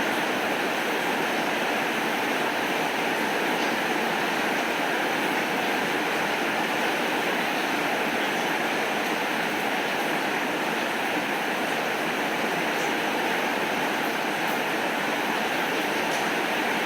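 Heavy rain falling steadily, an even hiss with no change in strength, with a few faint scattered ticks.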